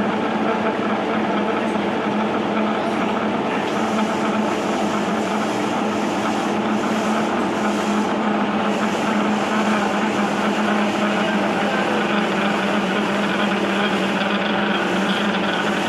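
Metal lathe running steadily during single-point thread cutting, a constant motor and gear hum, with a higher hiss that swells and fades repeatedly from a few seconds in.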